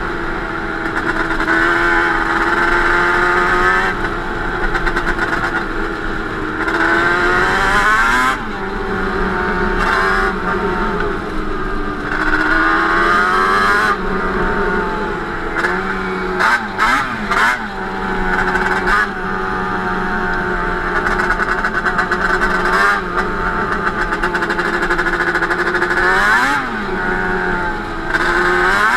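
Yamaha Banshee 350's twin-cylinder two-stroke engine, bored out and running Toomey T5 expansion-chamber pipes, revving up and easing off over and over while being ridden, with a few quick short throttle blips about halfway through.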